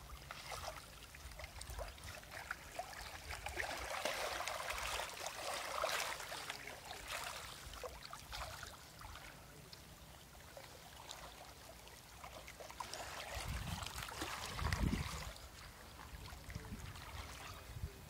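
Small lake waves lapping and splashing against shoreline rocks, an uneven watery hiss with little splashes that swells and fades. A low rumble joins in a few seconds before the end.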